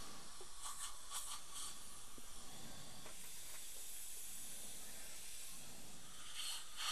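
Steady hiss of dental suction running, with a few brief clicks about a second in and again near the end.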